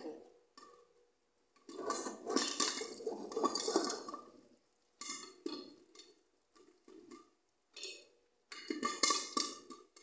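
Popcorn kernels popping against the glass lid of a pan, with oil sizzling. The pops come in irregular clusters separated by short quiet gaps, and the longest run starts just under two seconds in.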